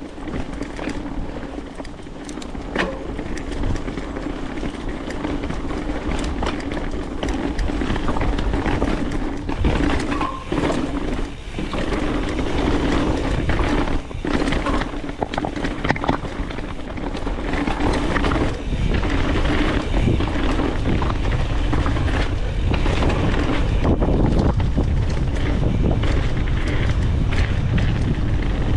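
Mountain bike riding fast down a dirt trail: tyre roar on the ground with frequent rattles and knocks from the bike over rough terrain, and wind rumble on the microphone that grows stronger in the second half.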